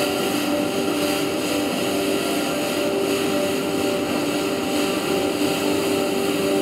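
Background music: a steady, droning ambient track of held notes.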